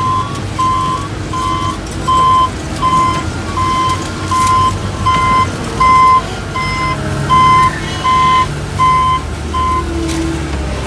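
Reversing alarm on a construction vehicle beeping, about two evenly spaced beeps a second, over a diesel engine running. The beeping stops near the end.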